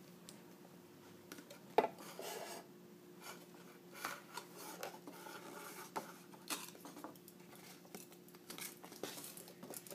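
Clear plastic camera housing and cardboard box being handled: scattered clicks, taps and rubbing, with one sharper click about two seconds in.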